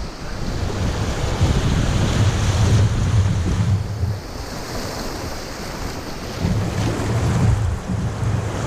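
Strong gusting wind buffeting the microphone: a loud low rumble that comes in two long gusts, easing off for a couple of seconds in the middle.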